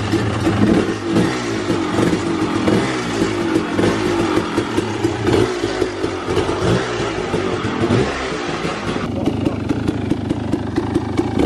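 KTM 300 XC-W two-stroke dirt bike engine, fitted with an FMF exhaust, starting up and running with repeated throttle blips. The exhaust note is lower and deeper with the new pipe.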